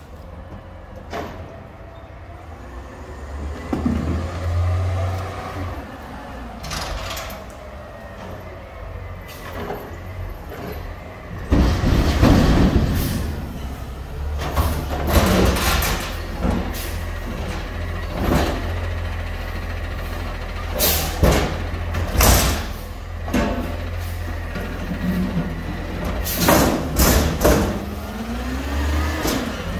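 Front-loader garbage truck's diesel engine, growing much louder about a third of the way in as the truck pulls up. Repeated sharp hisses and metal clanks follow as its forks engage and lift a steel dumpster. The engine revs up and down near the end as it drives the lift.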